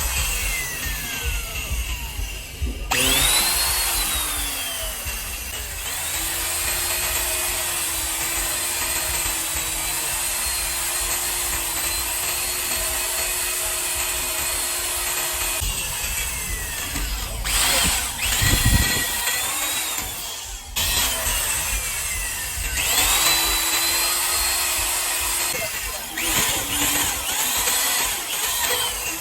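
An electric power tool motor runs in several bursts, stopping and restarting. Its pitch climbs as it spins up and falls as it runs down, over a steady hissing noise.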